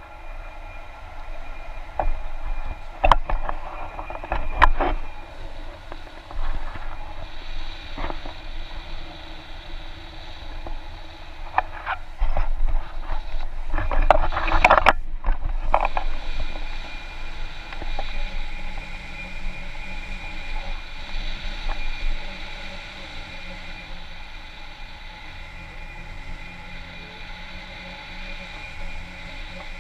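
Wind rushing over an action camera's microphone during a tandem paraglider flight. It buffets harder about 3 to 5 seconds in and again around 14 to 16 seconds, with a few sharp knocks, then settles into a steadier rush.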